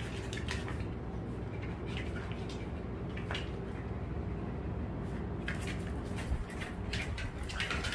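Small dogs moving about on a vinyl-covered floor: scattered light clicks and scuffs of claws and paws, over a steady low hum.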